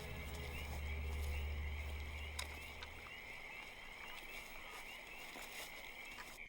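Steady, high-pitched chirping ambience of night creatures, with a low drone under it that fades out about three seconds in.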